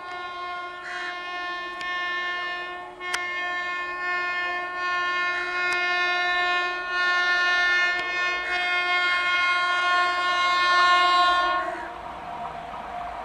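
WAP-7 electric locomotive's horn sounding in one long blast, with a brief break about three seconds in, growing louder as the express approaches at speed. The horn stops about twelve seconds in, leaving the rushing rail noise of the oncoming train.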